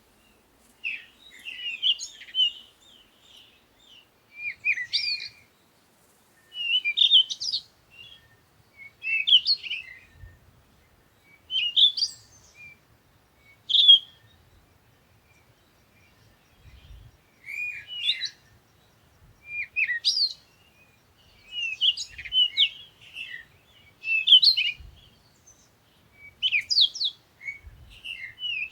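Songbird chirping in short high-pitched phrases, roughly one every two seconds, with quiet gaps between.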